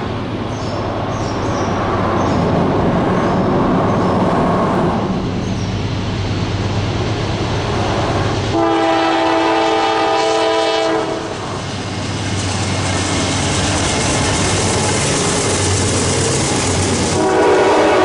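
Norfolk Southern diesel freight train approaching and passing, with a steady rumble of engines and wheels on rail. The locomotive horn sounds several notes at once for about two and a half seconds midway, then again near the end as the freight cars roll by.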